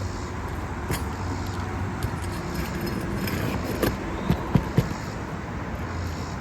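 Sharp metallic clicks and clinks of a hand tool working nails out of an asphalt roof shingle, one about a second in and a quick run of several near the end, over a steady low rumble.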